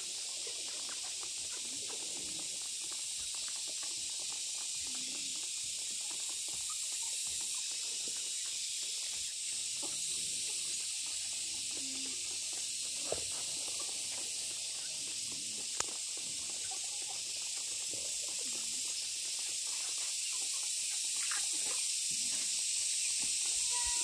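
Piglets grunting softly here and there as they root and forage, over a steady high-pitched hiss. Two sharp ticks come about halfway through, a few seconds apart.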